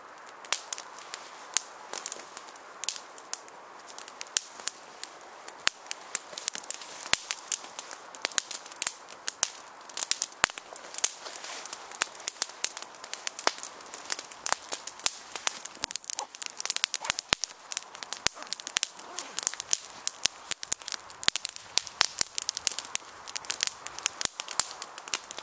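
Small wood fire crackling and popping as split kindling catches over its tinder bundle, with many sharp snaps over a faint hiss. The crackles come more often after the first few seconds as the flames take hold.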